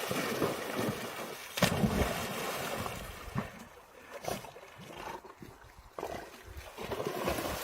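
Water splashing and sloshing, with irregular knocks.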